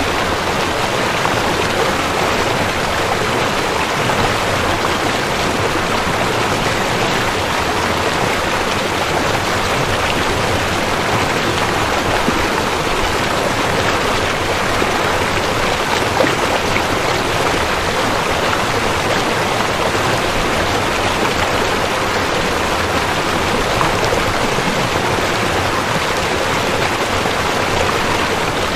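Steady rushing of flowing river water, an even hiss with no pauses.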